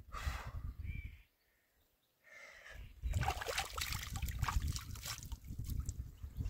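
Irregular clattering steps on stony ground over a low rumble. The sound drops out for about a second near the start, then the clatter runs steadily through the rest.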